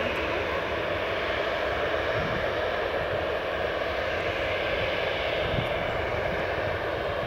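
Boeing 737-800's CFM56-7B turbofan engines running steadily at taxi thrust as the airliner rolls past, an even jet rumble and rush with no rise or fall.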